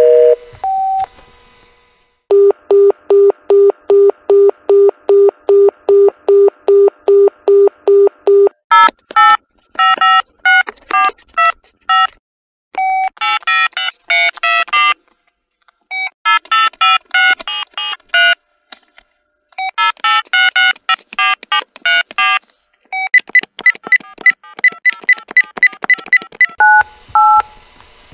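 A sequence of telephone sound effects. First an electronic phone ringer beeps in a fast, even, low-pitched pattern. Several melodic cellphone ringtones follow, then a rapid high warbling ring, and near the end short keypad-like beeps.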